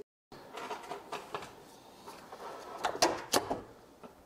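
Clicks and knocks of hand tools and metal parts being handled, with a cluster of sharp clacks about three seconds in.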